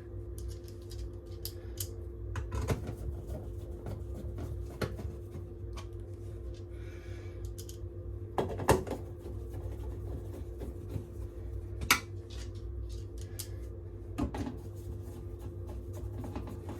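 Screws being driven back into a tumble dryer's metal cover panel with a Phillips screwdriver: scattered clicks and metallic clinks, with two sharper knocks near the middle, over a steady low hum.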